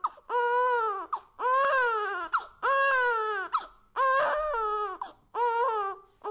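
Newborn baby crying: five short wails in a row, each rising then falling in pitch, about one a second, with brief breaths between.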